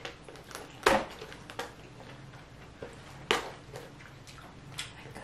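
Cooked king crab shell cracking and clicking as the legs are broken apart and the meat pulled out by hand, with two sharp, louder cracks about a second in and just past three seconds, and lighter clicks between.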